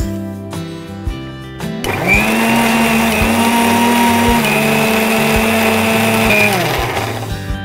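Electric mixer grinder running for about five seconds, grinding a wet paste of shallots, coconut and chilli powder. It starts about two seconds in with a steady hum and winds down, falling in pitch, near the end.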